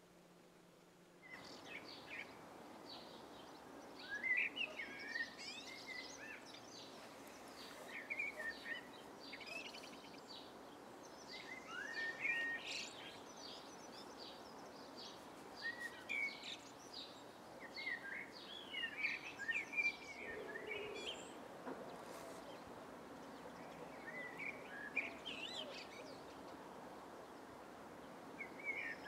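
Garden songbirds singing and calling in many short, twittering phrases over a steady background hiss, starting about a second in after a brief near-silence.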